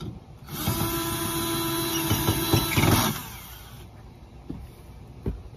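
Cordless screw gun running for about two and a half seconds with a steady motor whine, driving a hand-started screw into a hurricane shutter crossbar, then stopping. A single knock near the end.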